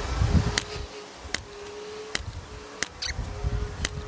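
FX Impact M3 .22 PCP air rifle firing a five-shot group: a quick series of sharp shot cracks, about one every 0.7 seconds.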